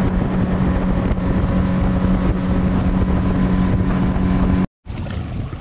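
Outboard motor on a small aluminium boat running steadily at speed, with wind on the microphone and water rushing past the hull. Near the end the sound cuts out abruptly and comes back quieter.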